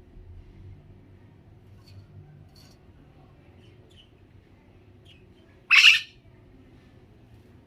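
Pet parrot giving a few faint chirps, then one loud squawk, under half a second long, near the end.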